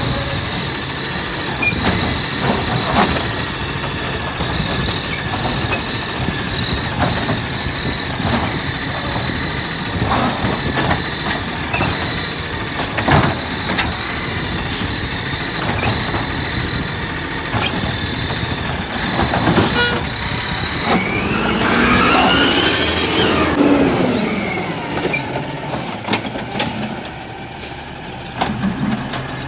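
Natural-gas automated side-loader garbage truck running at the curb, with a steady high whine and scattered clanks and knocks. About two-thirds of the way through, the engine revs up and back down as the truck pulls forward to the next cart.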